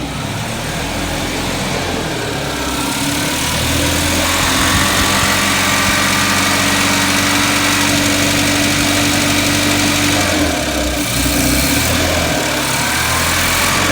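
1979 Datsun 210's four-cylinder engine idling steadily, growing a little louder about four seconds in. It is still misfiring: the owner finds it running on only two cylinders.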